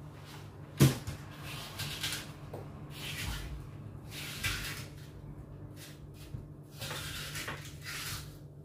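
Small knife carving and scraping out the core of a hand-held apple: a run of short, irregular rasping scrapes, with a single sharp knock about a second in.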